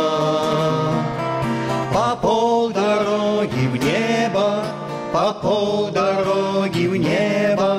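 Men singing a Russian-language Christian song, with acoustic guitar accompaniment; the voices hold and slide between long notes.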